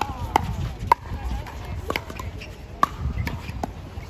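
Pickleball rally: paddles striking a plastic pickleball back and forth, five sharp pops about a second apart.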